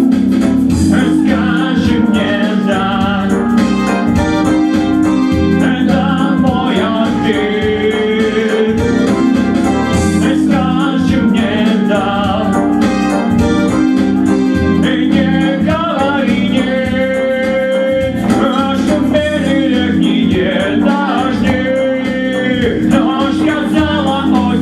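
A man and a woman singing a pop duet into microphones over a karaoke backing track.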